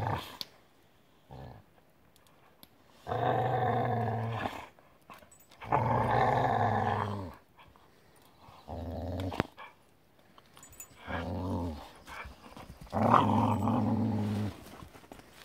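Pit bulls growling in play during a rope-toy tug-of-war: about five deep growls, each a second or so long, with short pauses between.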